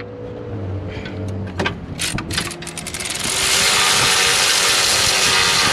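A ratchet wrench tightening a bolt: a few separate clicks about two seconds in that quicken, then about two and a half seconds of loud, continuous rapid ratcheting.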